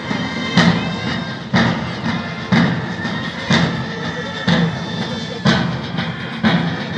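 Military marching band playing a march: sustained wind instruments over a heavy bass drum beat about once a second.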